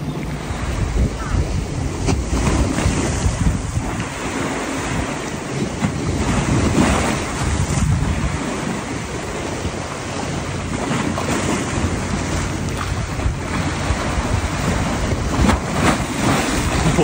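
Small waves washing up and splashing against a paved stone seawall and its steps, a steady wash with louder surges as waves break, and wind buffeting the microphone.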